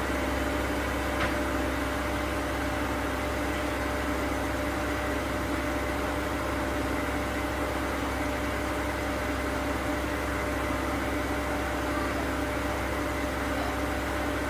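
ASKO W6564 washing machine on its spin cycle: the drum spinning with a steady hum and a constant whine, holding speed.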